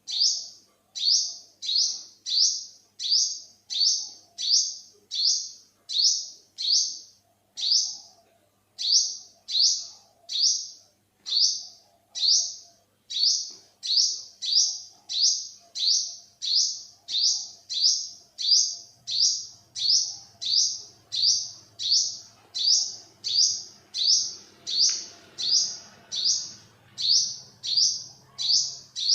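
Olive-backed sunbird calling: a single short, high, sharp note repeated steadily about once every 0.7 seconds, with one brief pause about seven seconds in.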